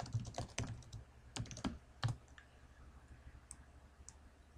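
Typing on a computer keyboard: a quick run of keystrokes over the first two seconds, then a couple of faint clicks near the end.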